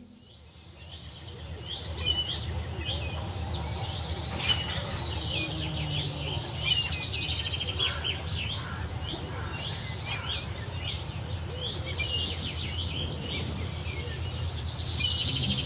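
Many small birds chirping and trilling at once, a dense overlapping chorus, over a steady low rumble. It rises in over the first second or two.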